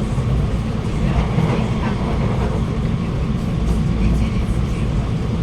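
Alstom Movia R151 metro train running between stations, heard from inside the carriage: a steady low rumble of wheels on the rails and running gear.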